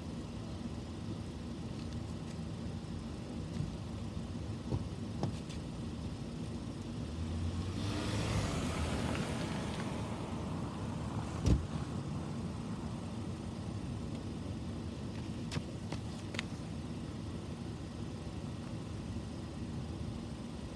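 Street background: a steady low hum with a car passing, its tyre and engine noise swelling and fading about eight to ten seconds in. A single sharp knock follows shortly after, plus a few faint clicks.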